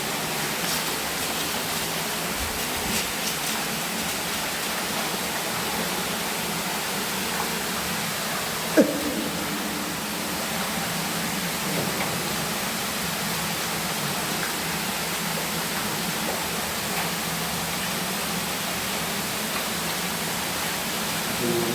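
Steady, even rushing noise, with one short sharp sound that drops quickly in pitch about nine seconds in.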